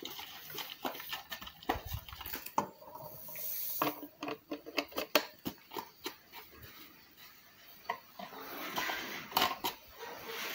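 Irregular light clicks and knocks of a plastic bottle and parts of a brush cutter's two-stroke engine being handled, with a short hiss about three seconds in.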